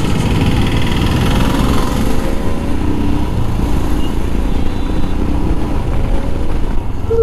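Royal Enfield Himalayan BS6's 411 cc single-cylinder engine pulling away and accelerating on the road, its pitch rising over the first couple of seconds, heard from the rider's seat.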